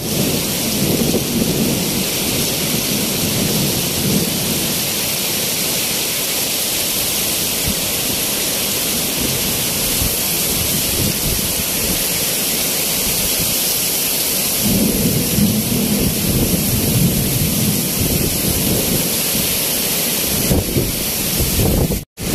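Heavy rain pouring down in a windstorm: a loud, steady hiss, with low rumbling swells in the first few seconds and again from about fifteen seconds in. The sound cuts out for a moment near the end.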